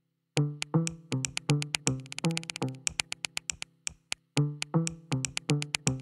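Electronic background music: a drum-machine beat with short plucked bass notes and crisp high clicks. It starts about half a second in and drops out briefly in the middle.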